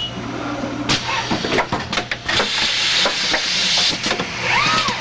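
Automated assembly machine cycling at its grease station: pneumatic tooling and robot moves clicking and clunking several times, with a hiss in the middle, over a steady electrical hum.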